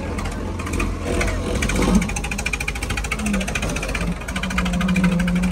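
Tractor diesel engine running with a fast, even mechanical chatter over a low rumble. About four seconds in, a steady low tone joins it.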